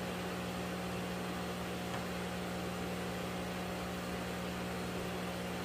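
A steady mechanical hum at one constant low pitch, with a light hiss over it.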